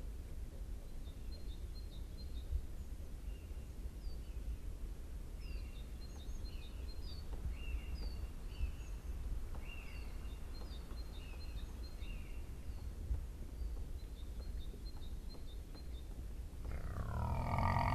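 Small birds give short, high chirps over a low, steady rumble. Near the end a wild boar lets out a loud grunt.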